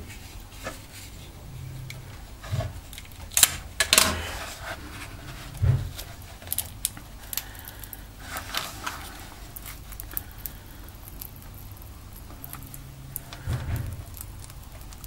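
Small clicks, ticks and scrapes of a plastic guitar pick and a knife blade being worked along the edge of a first-generation Nexus 7's glued screen, prying it off the plastic bezel as the heat-softened adhesive lets go. The two sharpest clicks come about three and a half and four seconds in.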